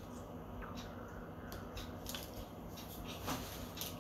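Faint crackle of sesame oil warming in a cast iron kadai on a gas stove, with a few small ticks over a low steady hum.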